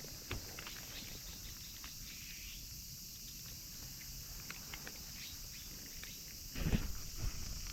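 Steady high-pitched chirring of crickets and other insects, with scattered faint clicks and a louder low rustle about six and a half seconds in.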